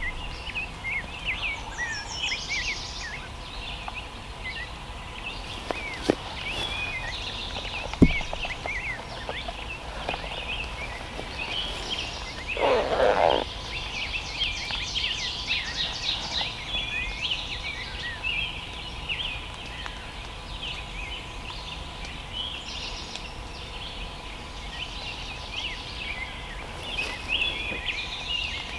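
Many songbirds chirping and singing together in a morning chorus, with short high calls overlapping throughout. About halfway through, a lower, rough call lasts about a second.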